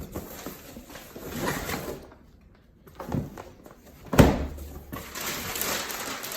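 Packaging and fabric soft-door parts being handled and rustled, with a sharp knock about four seconds in and denser rustling after it.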